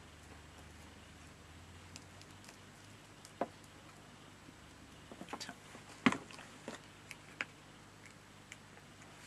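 Light handling of paper craft materials on a desk: a few scattered soft taps and clicks, the loudest about six seconds in.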